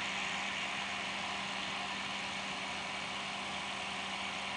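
John Deere 3300 combine's engine and threshing machinery running at a steady speed: an even mechanical drone with a constant hum.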